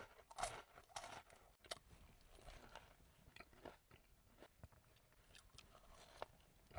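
Faint close-up chewing and crunching of a doughnut topped with pistachios and chocolate: a scatter of small crackles and clicks, strongest in the first second.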